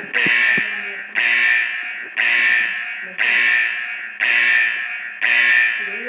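A Simplex TrueAlert fire alarm unit sounding its alarm tone. The tone repeats about once a second, each note starting sharply and fading before the next.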